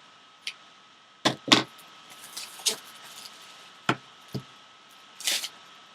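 A scatter of short clicks, taps and rustles from objects being handled on a table, the sharpest about a second and a half in.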